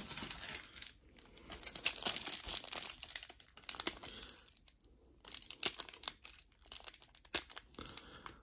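A 1991 Pro Set golf card pack's wrapper crinkling and tearing as it is worked open by hand, in irregular bursts with a short pause about halfway through.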